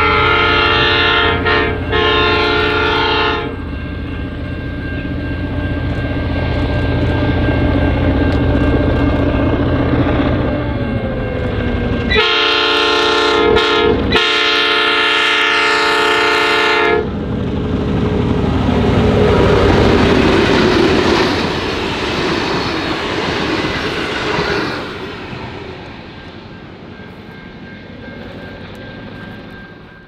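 Diesel locomotive's multi-tone air horn sounding a chord for about three seconds, then again for about five seconds with a short break near its start, over the low rumble of the engine. The train then goes past with engine and wheel noise and fades away near the end.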